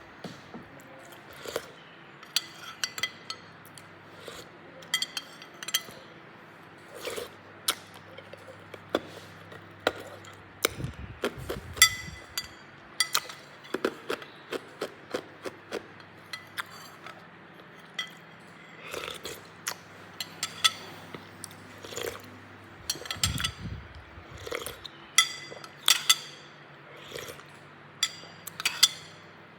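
Hard cube ice being crunched and eaten close to the microphone, with cubes clinking against a dish: many sharp cracks and clinks at uneven intervals, with a few heavier crunches.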